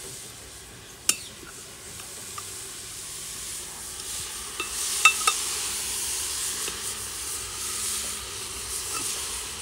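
Food frying in oil in a pan, with a steady sizzle that grows louder about halfway through. A metal spoon stirs and clicks sharply against the pan a few times.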